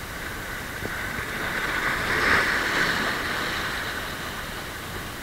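Sea wave washing in over shore rocks: a hiss that swells, peaks about halfway through and dies away over a few seconds.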